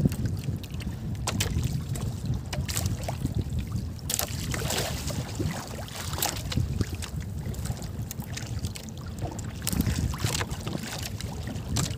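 Wind buffeting the microphone and water lapping against a small wooden outrigger boat, with scattered light knocks.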